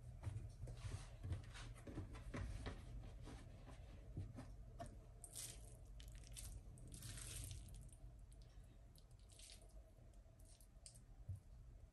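Faint rustling and small clicks and scrapes from thin spring roll wrapper sheets being peeled apart and laid out, with a spoon scooping noodle filling onto the wrapper. There are two longer rustles about five and seven seconds in.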